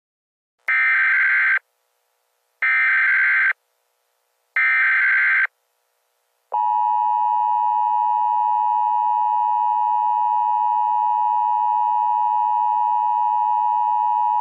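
Emergency Alert System tones: three short data bursts of the SAME header, each about a second long with a second's gap between them, then the steady two-tone attention signal held for about eight seconds. Together they mark the start of a new emergency alert, ahead of its spoken message.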